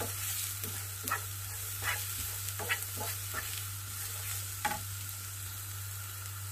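Diced carrots, green beans and spring onion sizzling in oil in a non-stick frying pan while a wooden spatula stirs them, scraping across the pan about once a second over a steady hiss.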